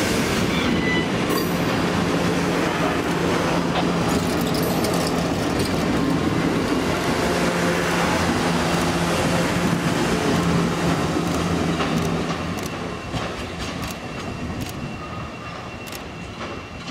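Amtrak Superliner bilevel passenger cars rolling past on the rails, wheels running with a steady low hum. The level falls off about twelve seconds in as the last car goes by, leaving a few sharp clicks near the end.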